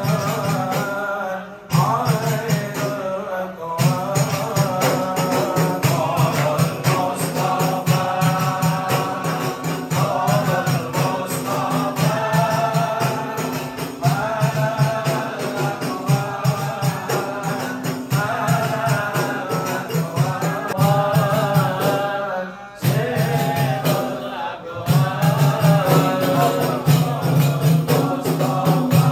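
A group of men chanting Arabic devotional verses (sholawat) together over a steady percussion beat, with a couple of short breaks between phrases.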